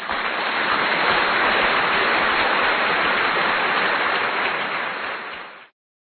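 A steady, dense rushing noise that fades and stops near the end.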